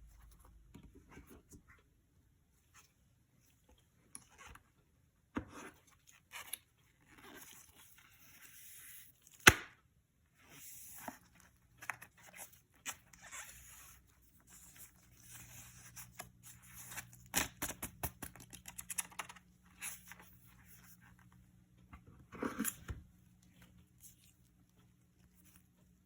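Handling of an iPad Pro's packaging: scattered taps and clicks with crinkling and tearing of wrapping. One sharp click about nine and a half seconds in is the loudest sound.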